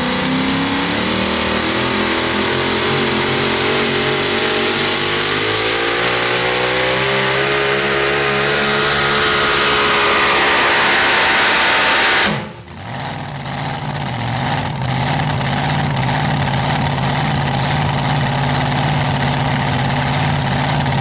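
A modified four-wheel-drive pulling truck's engine runs at full throttle under load, its pitch climbing steadily for about twelve seconds. About twelve seconds in the sound drops away abruptly, then the engine runs steadily at a lower speed.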